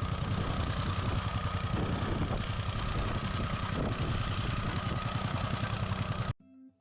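Heavy machinery engine running steadily with a fast, even pulsing during tear-out of an old concrete driveway; it cuts off suddenly near the end.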